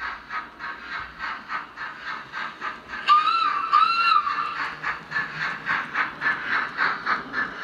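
Sound-fitted Hornby 2P model steam locomotive running, its DCC sound chuffing steadily at about four beats a second. Two short whistle blasts come about three seconds in.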